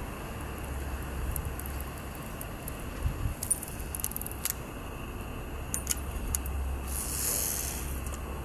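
Scattered small metallic clicks and clinks from fishing tackle being handled, over a steady low wind rumble on the microphone. A short hiss comes near the end.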